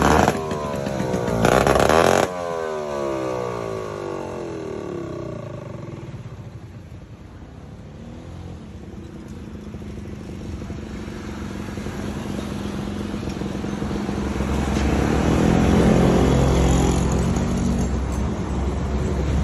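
Two-stroke engine of a heavily modified Vespa scooter running. It is loud for the first couple of seconds, then fades as it moves off, and from about halfway it grows louder again as it comes back close, with a low steady drone.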